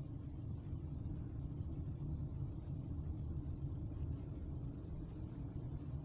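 Steady low road and engine rumble heard inside the cabin of a moving Kia Forte cruising at town speed.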